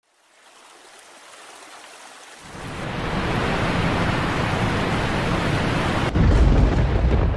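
Logo-animation sound effect: a hiss that swells, joined by a low rumble about two and a half seconds in, then a sudden deep boom about six seconds in that keeps rumbling.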